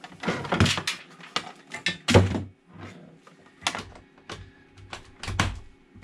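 Irregular knocks, clunks and rustling from an e-bike battery charger and its cable being handled on a workbench, with the loudest thunks about 2 s in and near the end.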